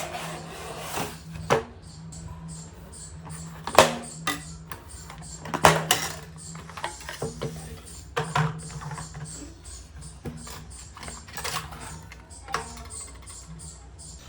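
Irregular clicks and knocks, a few of them louder, over a low hum that comes and goes.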